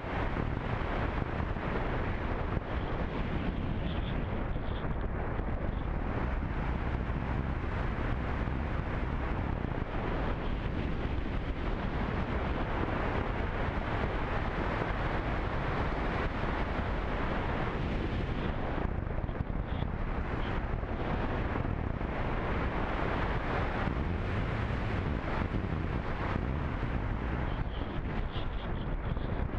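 Steady wind rush on the onboard camera microphone of a radio-controlled slope glider in flight, with no motor sound.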